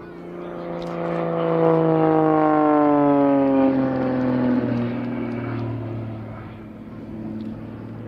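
Extra EA-330SC aerobatic plane, its six-cylinder Lycoming engine and three-blade propeller at high power, passing close by. It swells to a peak, drops in pitch as it goes past, then fades as it pulls up and climbs away.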